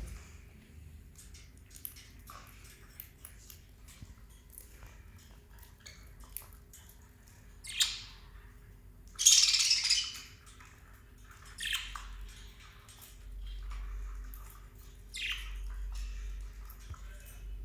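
Small pet parrots (lovebirds and budgerigars) chirping, with several loud harsh squawks; the loudest, about nine seconds in, lasts about a second.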